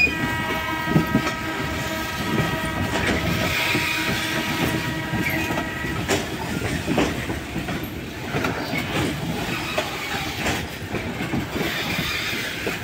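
Loaded ore hopper wagons rolling past, their wheels clattering and clicking over the rail joints. For about the first six seconds a locomotive horn sounds one long steady note, then stops.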